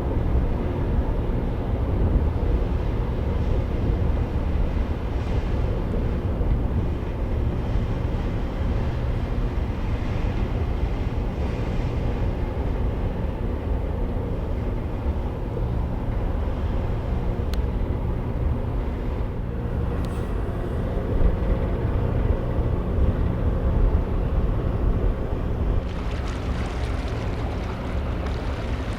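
Large ropax ferry's engines running with a steady low rumble and hum as the ship comes into port. A broader hiss joins near the end.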